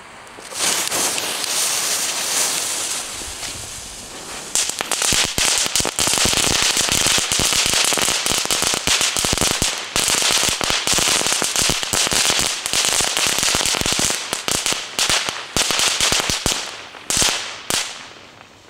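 Crackling-cord ground fireworks burning. A spitting hiss of sparks starts about half a second in. From about four and a half seconds it turns into dense, rapid crackling pops, which thin out and die away near the end.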